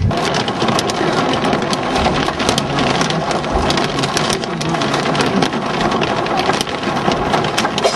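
Heavy thunderstorm rain pelting down on a hard surface, a dense patter of many sharp individual hits.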